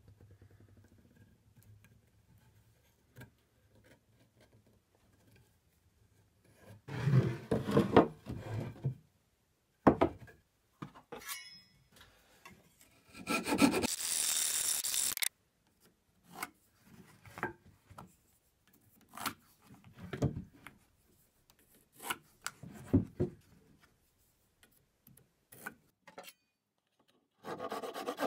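Hand sawing and handling of wood on a workbench, in short separate stints: strokes of a small handsaw trimming a glued-in wooden patch flush with a post, a sharp wooden knock about a third of the way in, then a backsaw starting a steady cut across the end of the post just before the end.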